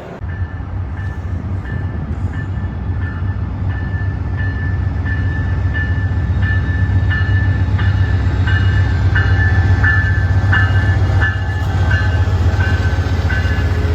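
A train approaching, its low rumble growing steadily louder, with a bell dinging evenly about one and a half times a second.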